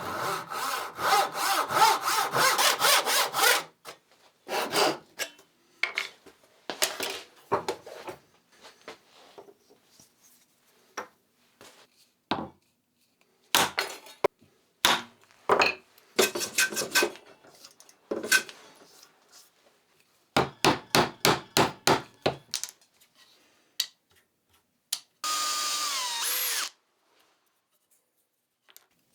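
Wood being sawn by hand in runs of quick back-and-forth strokes, with scattered short scrapes and knocks between them. Near the end a small power tool runs briefly and winds down.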